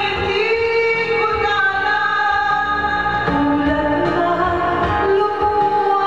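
A woman singing a Filipino ballad in long held notes over a karaoke backing track.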